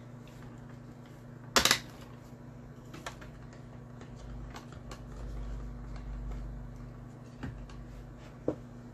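Plastic clicks and knocks from a Tupperware hand-cranked rotary drum grater being handled and taken apart, with one loud knock about one and a half seconds in and a few lighter clicks later. A steady low hum runs underneath.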